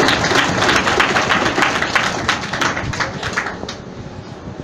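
Audience applause: many people clapping, dense and loud at first, then dying away about three and a half seconds in.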